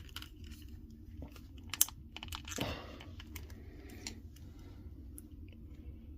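Small plastic clicks and rattles from an action figure and its accessory being handled and fitted together, busiest in the first couple of seconds with one sharper click, then a short rustle and a few fainter clicks.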